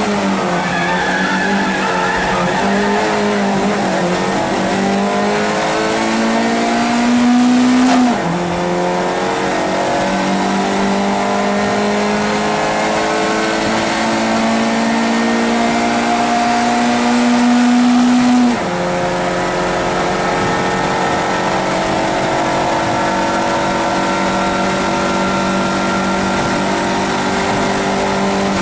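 Race car engine heard from inside the cabin at full throttle, its pitch climbing slowly through a gear, dropping sharply at upshifts about 8 and 18 seconds in, then held at steady high revs.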